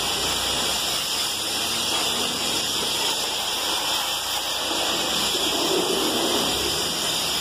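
High-pressure water jet from a pressure-washer lance spraying onto a truck, a steady, unbroken hiss.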